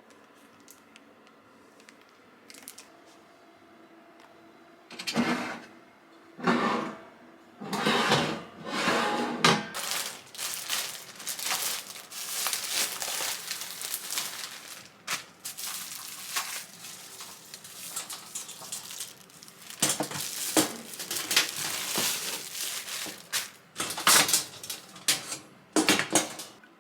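Household objects being handled: irregular rustling, crinkling and light clattering, starting about five seconds in.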